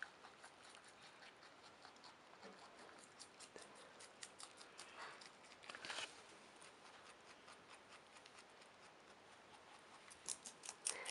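Pet rabbit chewing tomato and lettuce: faint, quick, crisp clicks of its teeth, with a brief louder rustle about six seconds in and denser chewing near the end.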